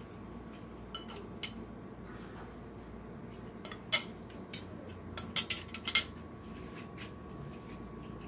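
Metal fork and spoon clinking against a plate: a few light taps about a second in, then a quick run of sharper, louder clinks from about four to six seconds in as the cutlery is laid down on the plate.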